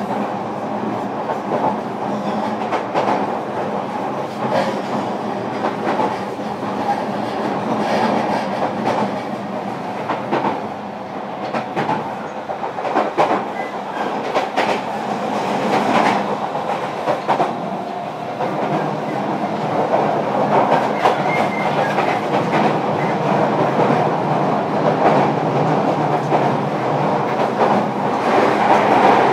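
Interior running noise of a JR Kyushu 305 series electric train, heard inside its motor car at speed. A steady rumble of wheels and running gear carries repeated clicks as the wheels pass over rail joints, and it grows louder over the second half.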